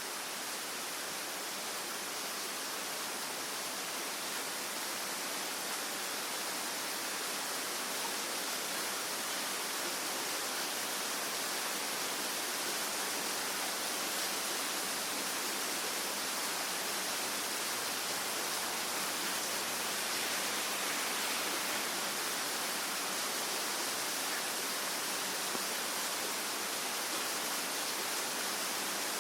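Steady rain, an even hiss with no single drops standing out and no change in level.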